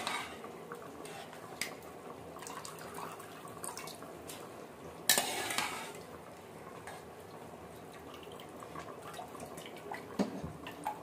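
Metal utensils knocking and clattering against an aluminium cooking pot as soaked rice goes into boiling broth, the loudest clatter about five seconds in and lighter knocks around it. The boiling broth bubbles steadily underneath.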